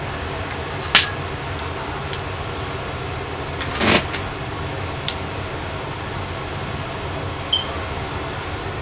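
Steady low room hum, broken by a sharp click about a second in, a short noisy swell near four seconds and a few smaller ticks, as a man eats a sandwich with his hand close to the microphone.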